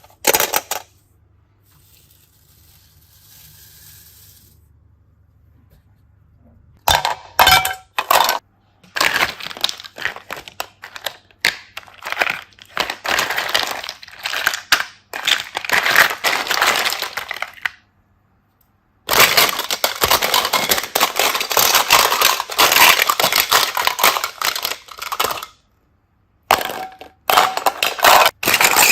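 Slime being squeezed and worked by hand, giving rapid sticky crackles and clicks in long runs that stop and start with short silent pauses.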